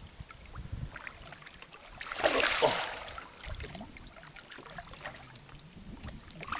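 A hooked jungle barb (Hampala barb) thrashing and splashing at the water's surface as it is played toward a landing net, with one loud splash about two seconds in.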